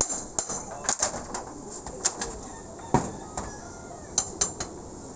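A claw hammer prying nails out of old corrugated iron roof sheets: irregular sharp metallic clicks and taps, with a heavier knock about three seconds in.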